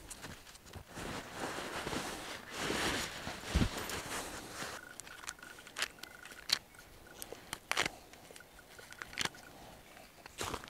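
Nylon stuff sack and hammock tree-strap webbing rustling as they are pulled out and handled, with a soft thump a few seconds in and scattered light clicks and taps after it.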